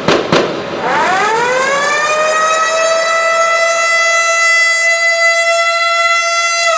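A few firework bangs right at the start, then a real siren used as a hockey goal horn winds up from about a second in, rising in pitch, and holds a steady wail, signalling a goal.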